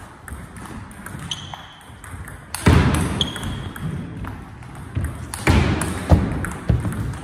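Table tennis rally: the ball clicking back and forth off the bats and the table. A couple of short high squeaks and several much louder thumps break in through it.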